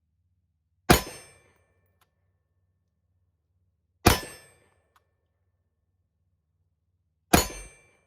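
Three single shots from an AR-15 rifle with a PSA upper, about three seconds apart, each a sharp crack with a short ringing decay.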